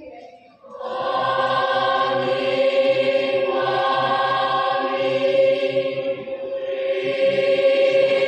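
Mixed-voice school choir singing, entering about a second in on a long held chord that eases a little and then swells again near the end.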